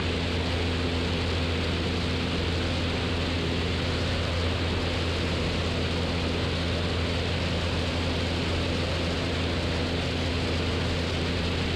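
Steady drone of a Cessna 172's four-cylinder Lycoming engine and propeller in flight, an even hum with a low steady tone under a broad hiss.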